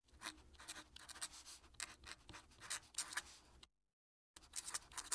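Faint scratching of a fountain pen nib on paper as cursive handwriting is written, in many short quick strokes. There is a dead-silent break of under a second about three and a half seconds in.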